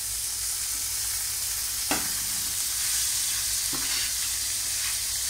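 Rice, paprika and chickpeas sizzling steadily in olive oil in a frying pan while being stirred with a spatula, with two light knocks of the spatula against the pan, about two and four seconds in.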